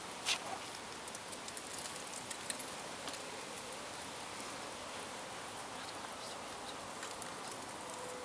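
Quiet outdoor background: an even steady hiss with a few scattered small clicks and taps, the sharpest just after the start.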